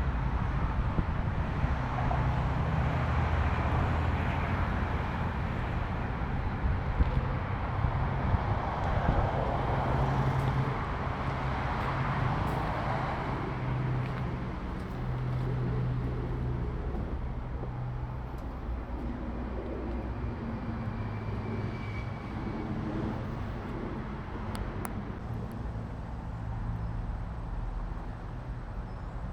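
Ducati Multistrada V4 engine running steadily at low revs, with wind and road noise rising and falling around it.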